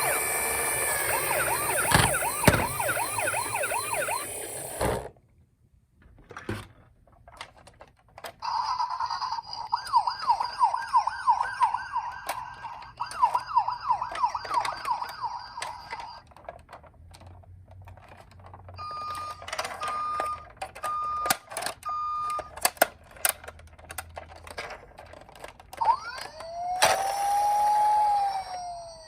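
Electronic toy sirens from toy ambulances and fire engines: several sirens sounding together at first, then cutting off suddenly. After some scattered clicks, a single warbling siren sounds for several seconds, then four short even beeps, and near the end one slow rising-and-falling wail.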